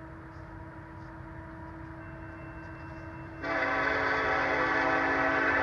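Union Pacific freight locomotive's air horn sounding one long, loud blast that starts suddenly about three and a half seconds in, over the low steady rumble of the approaching train.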